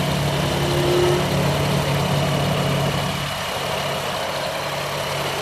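2007 Jeep Wrangler Unlimited's 3.8-litre V6 idling steadily. About three seconds in the sound changes as the radiator cooling fan kicks in.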